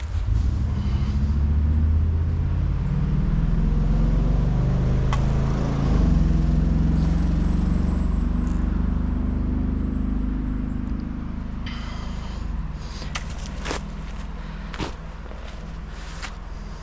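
A motor vehicle's engine passing: a low rumble with a pitched drone that comes up quickly, holds for several seconds, then slowly fades. Near the end come a few sharp scrapes and clicks.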